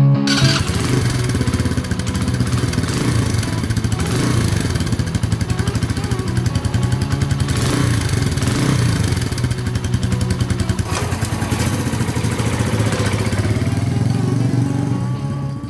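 Kreidler Dice CR125's single-cylinder four-stroke engine starting up and running steadily at idle through its chrome exhaust, fading near the end.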